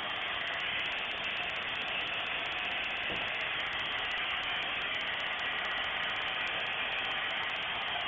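Steady hiss and hum of factory machinery running on a polyurethane foaming line, holding at an even level throughout.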